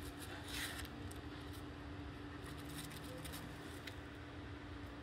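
Quiet room tone: a steady low hum with a few faint ticks, and a brief soft rustle about half a second in.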